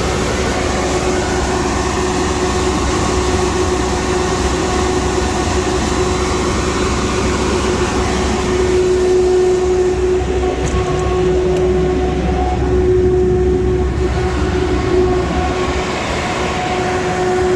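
150 kW Kohler natural gas generator set, its 8.8-litre PSI V8 engine running steadily with a constant hum and a steady droning tone.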